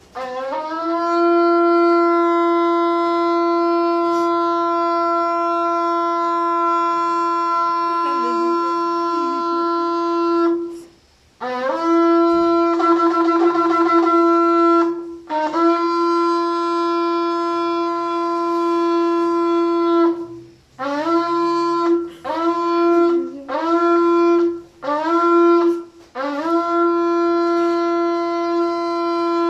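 Shofar blown in a series of calls: a long steady blast of about ten seconds, a shorter blast with a wavering middle, another long blast, four short blasts in quick succession, then another long blast. Each note scoops up in pitch at its start before settling on one steady tone.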